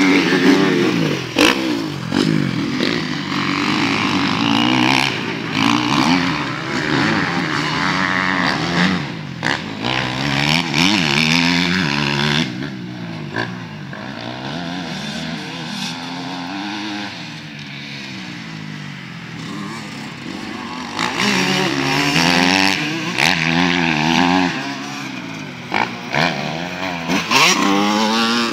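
Motocross dirt bike engines revving up and dropping off again and again as the riders accelerate and shift around the track. The sound is loud as a bike passes close near the start and again near the end, and fainter and more distant in between.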